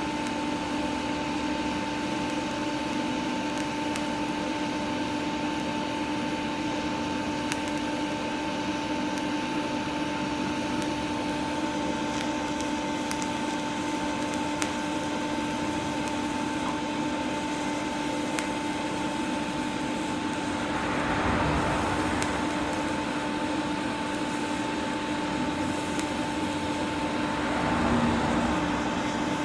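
DC TIG welding, with a steady electrical hum from the arc and power source holding two fixed tones throughout. Faint crackles come and go, and two brief swells of hiss rise about two-thirds of the way through and again near the end.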